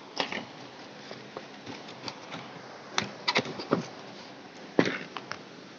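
Plastic blister-pack cosmetics packaging handled by hand against cardboard: irregular clicks and crackles, bunched together about three seconds in, with the loudest snap near the end.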